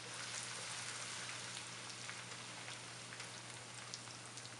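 Chopped onion, garlic and ginger sizzling in hot oil in a nonstick wok: a steady hiss with scattered pops and crackles. The garlic and ginger are being fried for a couple of minutes to bring out their aroma.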